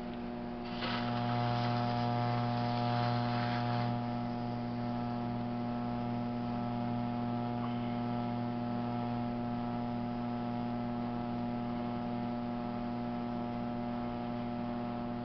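Electric potter's wheel humming steadily. About a second in, a louder hiss of a rib pressed against the wet spinning clay runs for about three seconds as the clay wall is compressed.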